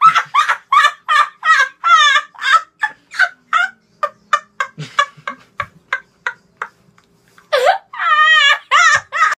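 A bird, fowl-like by its calls, calling loudly in a fast series of short upward-sweeping notes, about three or four a second. After a short pause near the end it gives longer warbling calls.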